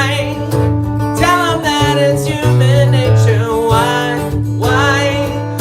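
Music: acoustic guitar playing a pop song, with a voice singing the melody.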